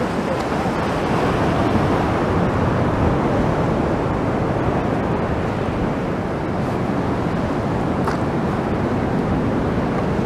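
Steady wash of sea surf breaking against the pier, mixed with wind buffeting the microphone.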